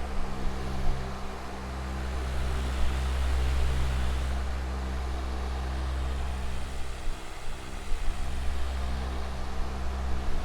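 Electric fan with metal blades running steadily: an even rush of air over a low motor hum, with a few faint steady tones.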